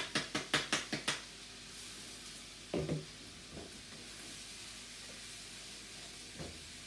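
About six quick sharp taps in the first second as the last of the cooked rice is knocked out of a bowl into a wok, then a single duller knock about three seconds in. Beneath them the wok sizzles steadily as the rice and vegetables fry.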